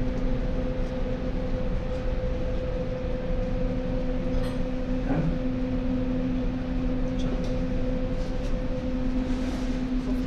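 A steady mechanical hum over a low rumble, with two steady tones, a few faint ticks, and no speech.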